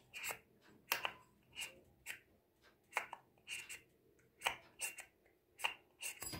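New Yamaha Mio J rear CVT pulley being worked by hand, its movable sheave slid open and shut against the fixed sheave, giving short, faint metallic scrapes and clicks about twice a second. The sheave slides a little stiffly, which is put down to the part being new.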